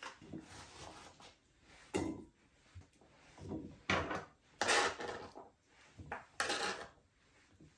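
Knife blade scraping diced cucumber across a plastic cutting board and into a bowl, in several short strokes.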